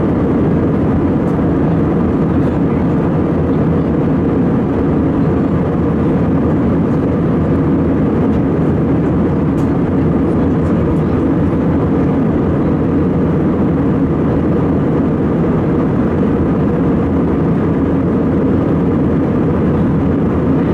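Steady cabin noise of an Airbus A320-216 in flight, heard from a window seat by the wing: an even, unbroken drone of its CFM56 engines and the airflow, deepest and loudest in the low range.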